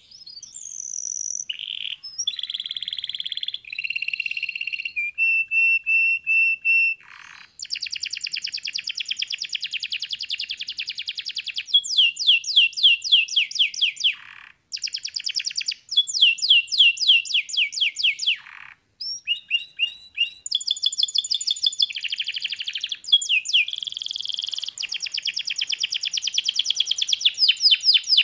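Domestic canary singing a long, varied song: held whistled notes, fast trills and runs of quick falling notes, broken by a few short pauses.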